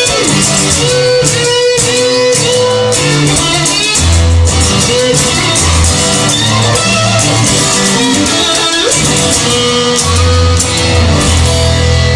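Guitar-led music with held notes, a low bass line coming in strongly about four seconds in.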